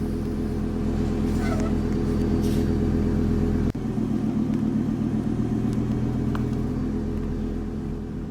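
A diesel school bus engine idling with a steady low rumble. There is a sharp click partway through, after which the deepest part of the hum drops, and the sound fades slightly near the end.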